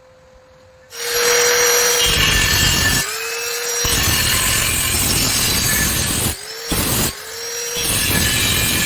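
Welding arc crackling loudly in several runs on thin square-section steel, each run cutting off abruptly with a short break, with a faint steady motor whine starting just before each run begins. It starts about a second in, pauses briefly around three seconds in and twice more, shortly, past the six-second mark.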